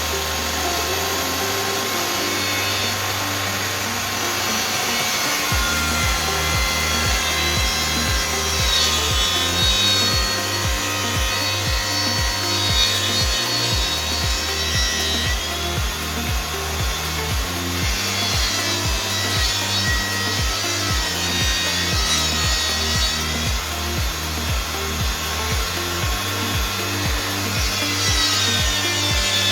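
Power saw cutting wood, a dense noisy rasp, over background music with a steady bass beat.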